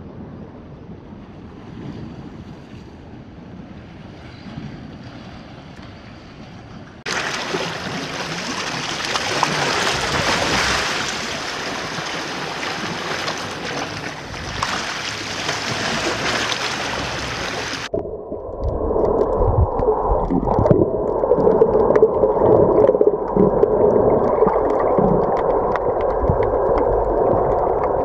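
Faint wind and water ambience, then about seven seconds in, loud waves washing and splashing over rocks at the water's edge. From about eighteen seconds in, the sound turns to the muffled rushing of water heard by a camera underwater, with faint ticks.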